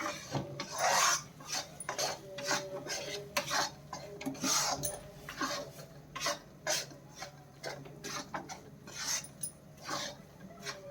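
A utensil stirring and scraping a pan of gram flour (besan) roasting in ghee, in irregular strokes roughly every half second to a second. The flour is being roasted until it turns reddish-brown for halwa.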